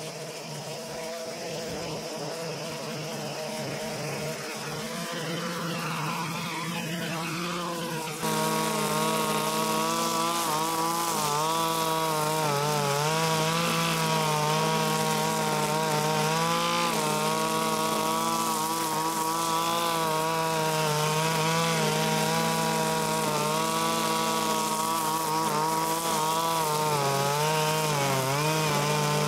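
Zenoah BCZ261 brush cutter's 25.4 cc two-stroke engine running at high revs while its nylon cutter head cuts grass. The engine is fainter at first, then much louder from about eight seconds in. Its pitch sags briefly now and then under load.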